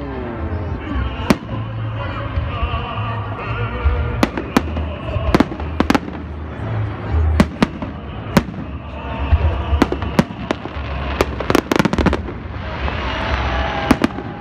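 Aerial firework shells bursting with sharp bangs, about a dozen of them, several in quick succession near the end, over loud music with a steady bass line.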